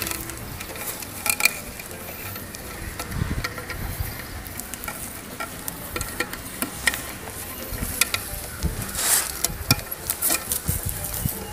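Thin steel binding wire being wound and twisted by hand around a coir rope and a wooden plank: scattered small scratches and clicks of wire on wood and rope fibre, with a louder scratch late on.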